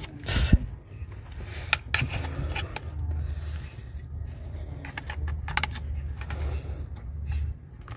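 Plastic retaining clips on the underside of a battery box cover being pried at with a plastic pry tool: scattered sharp plastic clicks and rattles, the loudest about half a second in, over a low steady rumble.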